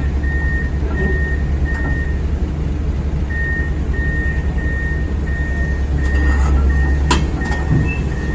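Heavy diesel engine of an excavator running under a steady low rumble, with a high-pitched warning alarm beeping about one and a half times a second that pauses briefly partway through. A single sharp metallic clank about seven seconds in.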